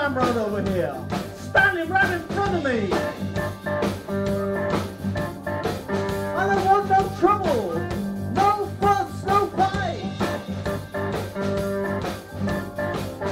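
Live blues band playing: a Stratocaster-style electric guitar plays a lead line with bent and sliding notes over held keyboard chords and a drum kit keeping a steady beat.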